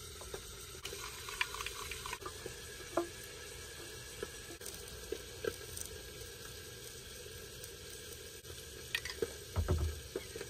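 Fork and utensil clinks against a plate while eating, scattered light clicks over a steady hiss. There is a heavier low thump near the end.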